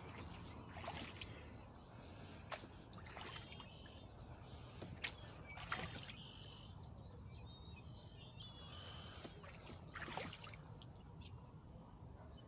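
A rowboat under oars: soft splashes of the oar blades in the water every couple of seconds, with a few sharp knocks of the oars in their oarlocks. Faint high bird chirps in the middle.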